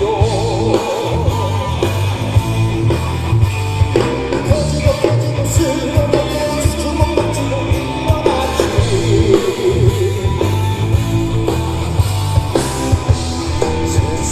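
Male vocalist singing live with a rock band: drum kit, bass and electric guitar backing him, with the voice holding long, wavering notes.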